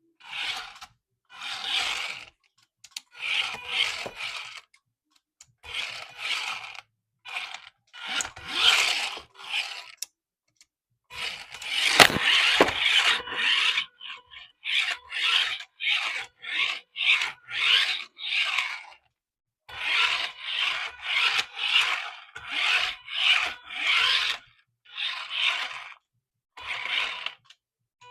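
Repeated short rubbing and scraping strokes, stopping and starting throughout, at times in quick runs of about two a second. The loudest moment is a sharp knock about twelve seconds in.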